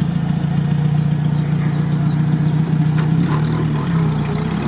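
Off-road vehicle engine idling steadily, its pitch wavering slightly late on.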